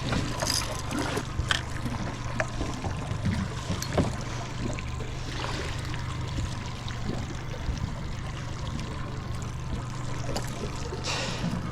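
Boat motor idling with a steady low hum, water trickling and lapping around the hull, and a few short knocks from handling in the boat.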